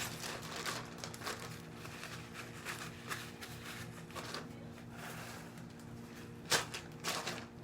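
Paper towels being torn and crumpled by hand, a patter of short rustles with a louder bout of crinkling near the end.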